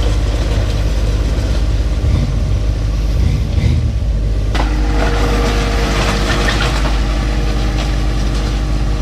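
John Deere 1025R compact tractor's three-cylinder diesel running steadily under load. About halfway through, a loud gritty crunching of gravel comes in and stays, as the rear blade scrapes the stone close by.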